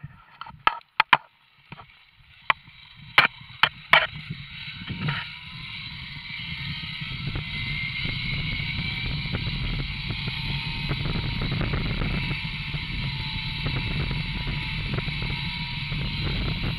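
Zipline trolley running along the steel cable: a few sharp metal clicks at first, then a steady low rumble and whir that builds over several seconds and holds as the ride picks up speed, with wind rushing past.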